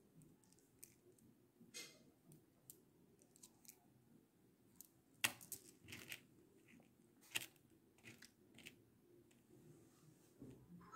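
Near silence with scattered faint clicks and rustles of tubular coral beads and thread being handled on a board; the sharpest click comes a little over five seconds in.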